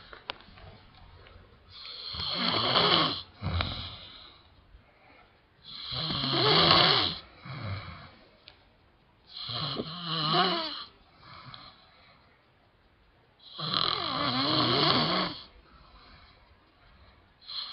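A man snoring: four loud snores about four seconds apart, each followed by a softer, shorter sound.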